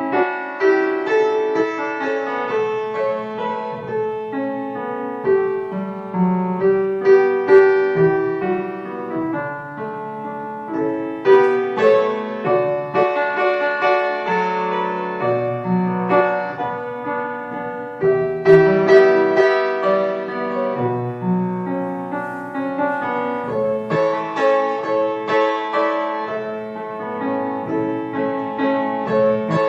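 Solo piano music: a calm, flowing piece of single notes and chords, each struck and left to ring.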